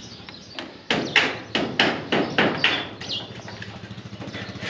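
A quick run of hammer blows on wood, about four strikes a second for a couple of seconds, then a few lighter taps.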